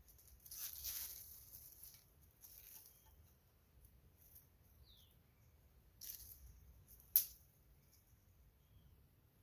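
Dry twigs and leaf litter rustling as thin sticks are fed onto a smoking kindling fire. The rustling is heaviest in the first two seconds, and there is one sharp snap about seven seconds in.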